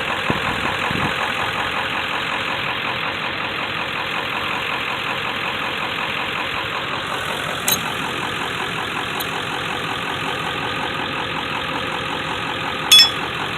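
Vehicle engine idling steadily, with a sharp knock about eight seconds in and a louder, briefly ringing knock near the end.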